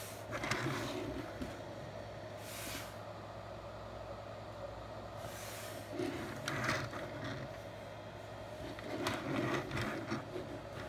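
Plastic toy figures being handled on a table: soft clicks and rubbing in scattered short spells, over a steady low electrical hum.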